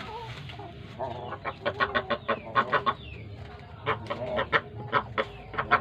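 Broiler chickens clucking in quick runs of short calls, several a second: one run from about a second in and another from about four seconds in.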